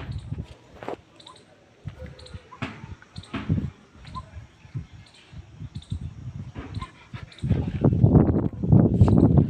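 Pet dog making small sounds: a few brief, faint whines among scattered clicks, then a louder stretch of noise for about the last two seconds.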